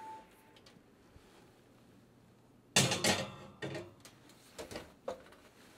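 A short beep at the start, then a loud metallic clatter about three seconds in with a few softer knocks after it: an oven door and a baking pan of buns being handled to check whether they are done.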